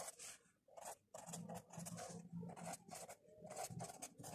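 Faint scratching and tapping of a felt-tip marker pen on notebook paper.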